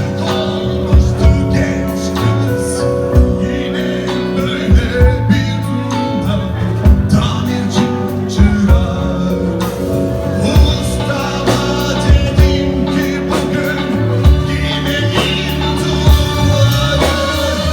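Live band playing a rock song, with held instrumental notes and frequent drum hits.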